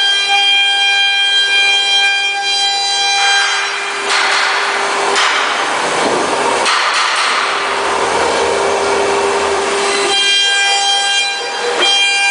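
CNC router spindle whining steadily at high speed. From about four seconds in until about ten seconds, the router bit cuts into the MDF board with a loud rasping noise over the whine, then the whine carries on alone.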